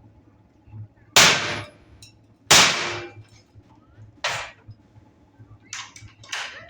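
Sharp impacts: two loud blows about a second and a half apart, a softer one, then a quick cluster of lighter knocks near the end.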